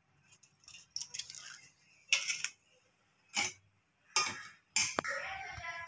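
Hands crushing dry carom (ajwain) seeds and sprinkling them over flour in a stainless steel plate: about five short dry rustles and clicks, roughly a second apart, with quiet between.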